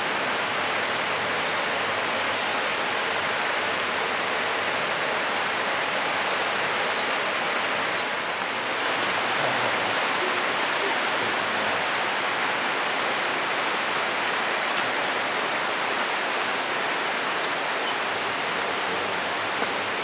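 Steady, even rush of a nearby waterfall.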